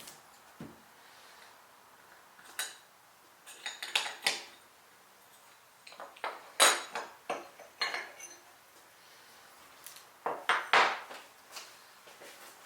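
Hard objects being handled and set down, clinking and knocking in irregular clusters, a few seconds apart.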